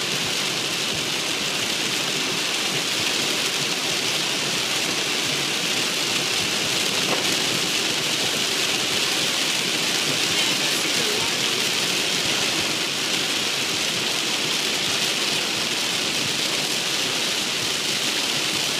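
Heavy rain hitting a car's windshield and roof, heard inside the cabin: a steady, dense hiss with no let-up.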